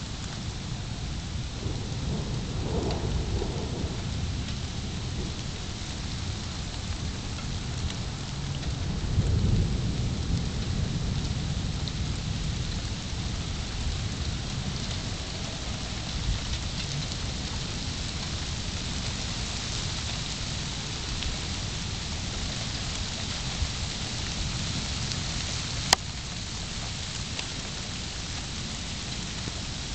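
Rain falling steadily with thunder rumbling, a first roll a couple of seconds in and a louder one about ten seconds in. A single sharp click sounds near the end.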